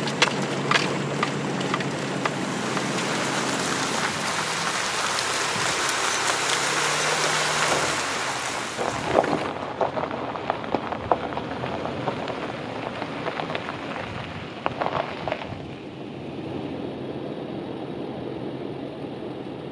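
Tyre and road noise on a dirt-and-gravel forest road, heard inside a moving Toyota 4Runner's cabin: a steady hiss with scattered pops of stones under the tyres. About halfway through it gives way to quieter outdoor sound with a few crunches and clicks, then a low steady ambience.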